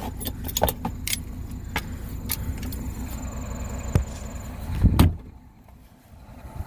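Diesel semi truck idling steadily while warming up, with tools and metal items clinking and rattling as they are handled. A heavy thump comes about five seconds in, after which the engine sounds fainter.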